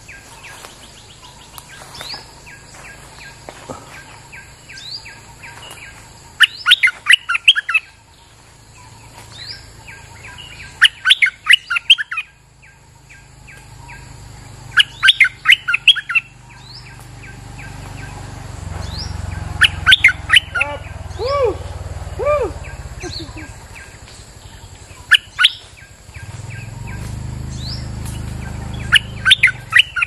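Caged decoy bulbul (merbah lekir) singing in loud, bubbly bursts of rapid notes, about one phrase every four seconds. Faint chirps from other birds come in between, and a few lower whistled notes sound around twenty seconds in.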